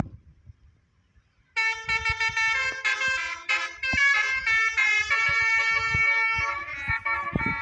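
Bus 'basuri' telolet horn, a multi-trumpet musical air horn, playing a quick tune of changing chords, starting about a second and a half in.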